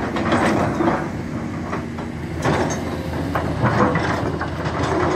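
Caterpillar 336 hydraulic excavator's diesel engine running under a steady drone, with frequent irregular clanks and rattles of steel against rock.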